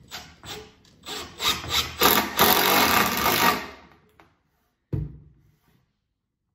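Makita 18V cordless impact driver sinking a screw into wood, first a few short blips of the trigger, then a longer run of rapid hammering about a second and a half in that stops just before four seconds. A single thump follows about five seconds in.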